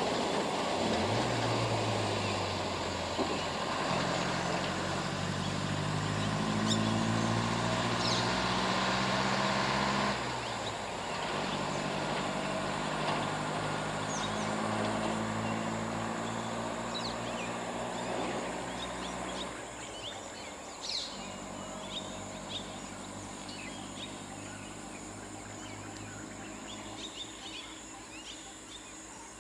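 A pickup truck's engine driving away, its drone shifting pitch in steps and fading out about twenty seconds in. Birds chirp over it and after it.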